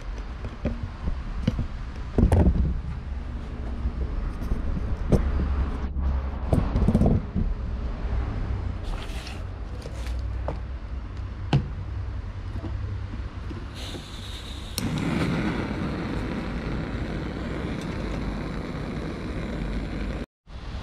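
Camping gear being handled and packed: a series of knocks, clatters and scrapes over a steady low rumble. About two-thirds of the way through, a steady rushing noise starts and carries on to the end.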